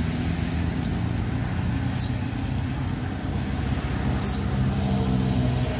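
Isuzu Giga truck's diesel engine running with a steady low drone, dipping slightly about three seconds in and picking up again near the end. Two brief high chirps, about two and four seconds in.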